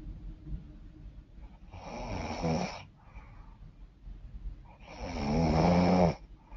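A woman snoring through a blocked, runny nose: two loud, rough snores about three seconds apart, the second louder and longer, with quieter breathing between.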